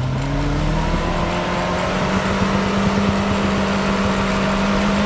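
An off-road 4x4's engine revving up. Its pitch climbs over the first two seconds, then holds steady at high revs.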